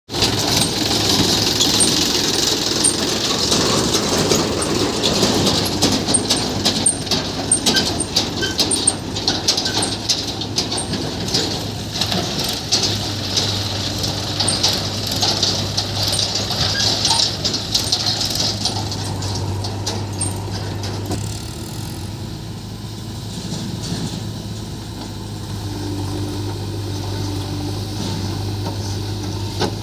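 Diesel machinery running: the engines of a backhoe loader and a tractor, with a steady low hum throughout. For about the first 20 seconds dense clattering and scraping noise rides over the engines. After that it settles to a steadier, quieter engine running.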